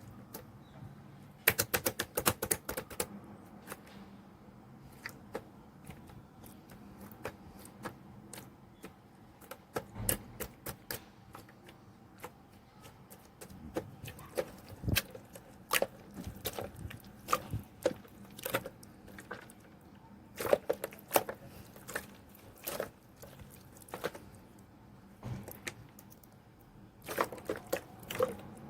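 Slime being worked by hand, giving off clusters of sharp clicks and pops, with the densest bursts a second or two in and again near the end.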